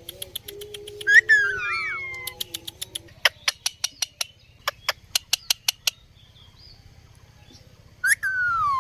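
Indian ringneck parrot making series of short, sharp, high clicking chirps, several a second, with a falling whistle about a second in and another near the end.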